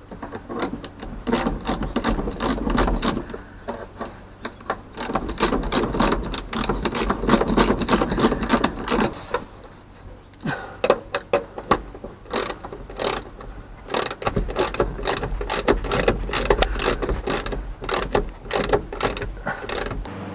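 A ratchet wrench clicking in quick runs of several clicks a second as bolts are turned, pausing briefly about halfway through.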